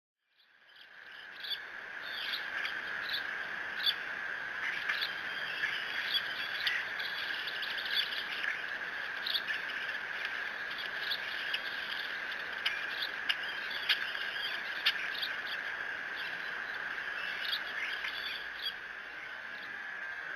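Steady, high-pitched insect chorus droning without a break, with many short bird chirps scattered over it.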